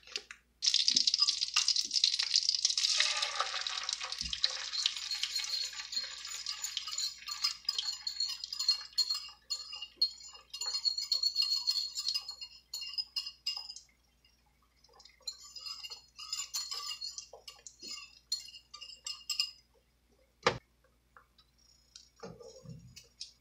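Beaten eggs sizzling in melted butter in a frying pan as they are poured in for an omelet; the sizzle is loudest at first and thins out in the second half. A single sharp tap comes near the end as a fork works the eggs in the pan.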